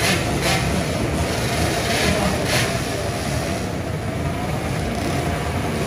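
Racing motorcycles revving at a drag-strip start line: loud engine noise with sharp rev bursts about every half second in the first few seconds, settling into a steady din.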